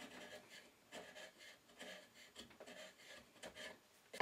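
Sharp wood chisel paring the protruding ends of hardwood dowels flush, a run of faint short scraping strokes.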